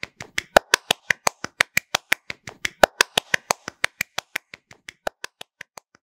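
A rapid, even series of sharp clicks or claps, about six a second, growing fainter over the last two seconds.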